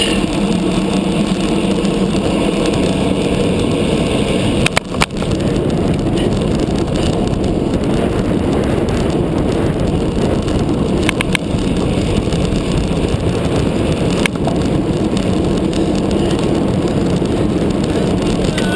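Wind rushing over a handlebar-mounted camera's microphone on a road bike at racing speed, with road and tyre rumble, broken by a few sharp clicks or knocks about five, eleven and fourteen seconds in.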